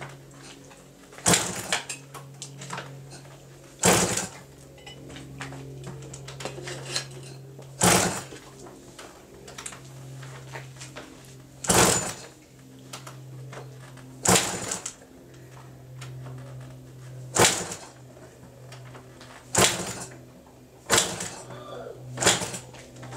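Repeated kick-start attempts on a rebuilt Kawasaki KX125 two-stroke engine that does not fire: about nine loud clacking strokes, one every few seconds, each turning the engine over without it catching. A steady low hum runs underneath.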